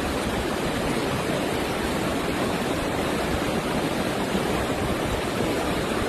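Floodwater rushing after heavy rain, a steady, even noise of running water with no breaks.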